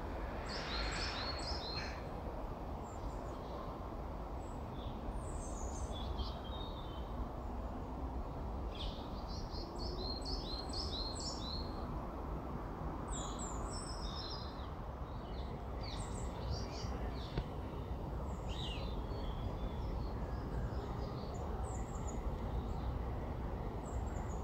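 Small songbirds chirping and calling in short, quick runs of high notes, scattered through, over a steady low background rumble.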